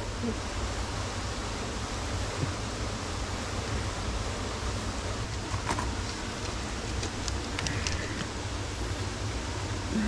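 Steady rushing of a mountain stream running over rocks. A few light clicks and taps come through about halfway in and again a little later.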